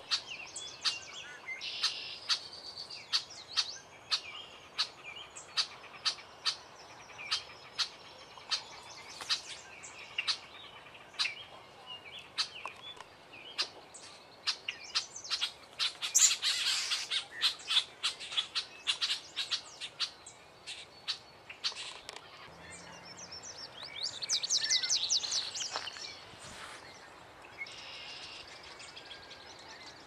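Wild songbirds calling and singing: a steady string of short, sharp chip notes, about two a second, with a louder flurry midway and a brief warbling trill near the end.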